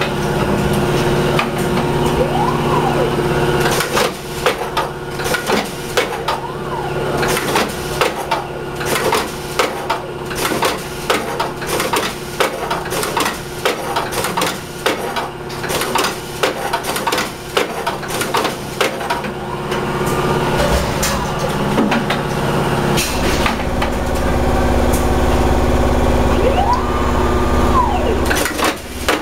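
Frozen-fish cutting machine running, its guillotine blade chopping down again and again through a frozen salmon as the conveyor feeds it in, giving a long run of sharp knocks over a steady machine hum. A motor whine rises and falls a few times, and a heavier low rumble comes in near the end.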